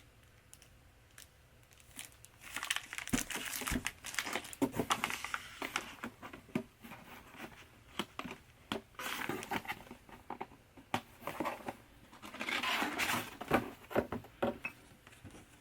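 Wrapping being unwrapped and handled: spells of crinkling and rustling with a few sharp clicks, about 2, 8 and 12 seconds in.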